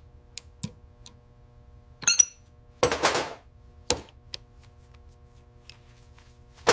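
AI-generated garage sound of metal hand tools at work on a motorcycle engine: scattered clicks and knocks of tools on metal, a ringing metallic clink about two seconds in, and a short rasp around three seconds. A faint steady hum lies under it all.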